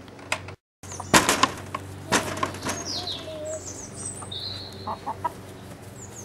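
Black Star hens clucking and flapping their wings, with a cluster of sharp knocks about a second in and high gliding calls in between.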